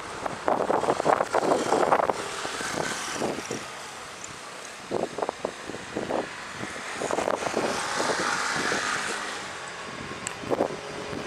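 Gusting wind buffeting the microphone in irregular bursts, over the faint steady jet hiss of a Cessna Citation CJ2+'s twin turbofan engines on approach, which swells a little about two-thirds of the way in.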